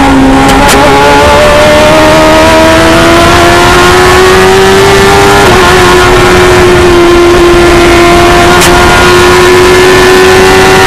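The 1000cc engine of a Stohr F1000 formula race car running hard at high revs, heard from the cockpit. Its note climbs steadily for about five seconds, dips slightly about halfway through, then holds nearly level.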